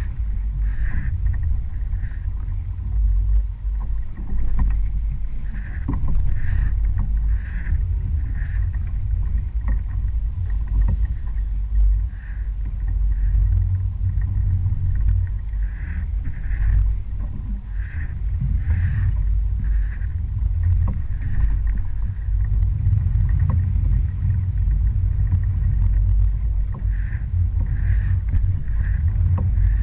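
Small fishing boat under way at sea: a steady low rumble of motor and wind, with short higher-pitched blips recurring about once a second.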